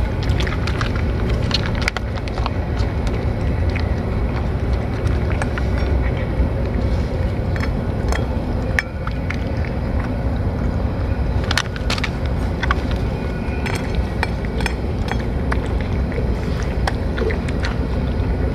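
Cats eating wet cat food from metal dishes: a scatter of small, irregular wet clicks and smacks from chewing and licking, over a steady low rumble.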